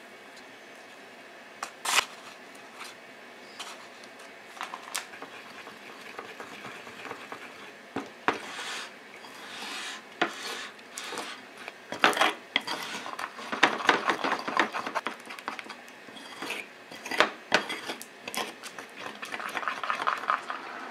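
Plastic measuring spoon tapping and scraping against a ceramic bowl as flour is stirred into beaten egg for batter. A sharp tap about two seconds in and a few spaced taps follow, then rapid clicking and scraping of brisk stirring from about twelve seconds.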